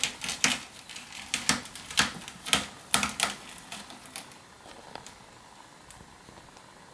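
Kitten playing with a cotton swab on a hard wood floor: sharp, irregular clicks and taps, two or three a second for about four seconds, then only a few faint ticks.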